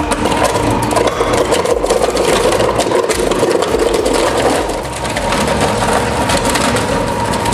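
A heavy shredding machine grinding and cracking wood, full of sharp snaps over its steady running drone and a high whine.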